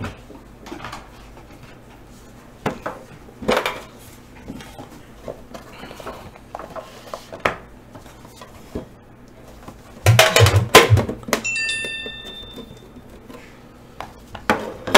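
Trading-card boxes being handled and set down on a table: rustling, light taps and clicks, then a louder clatter about ten seconds in, followed by a brief metallic ring.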